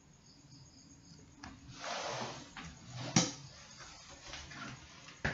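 A short rustle about two seconds in, then one sharp computer-mouse click a little past three seconds, with a couple of lighter clicks near the end.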